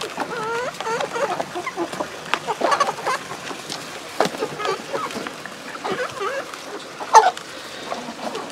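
A flock of chickens clucking and calling over one another as they peck at feed, with many short, sharp little sounds among the calls and one louder, sharp sound about seven seconds in.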